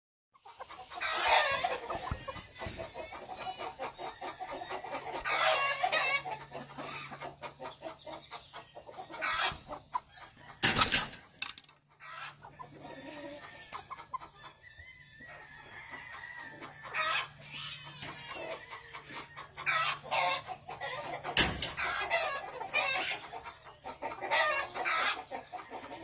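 Chickens clucking and roosters crowing in a pen, calls coming one after another. Two sharp bangs stand out, about 11 seconds in and again about 21 seconds in.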